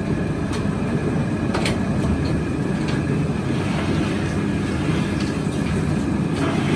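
Press brake running as its blade bends a long steel sheet: a steady, loud low machine rumble with a few light metallic clicks.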